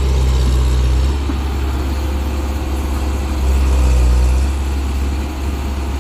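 Excavator's diesel engine running steadily with a deep hum. It eases off about a second in and grows louder again for about a second a little past the middle.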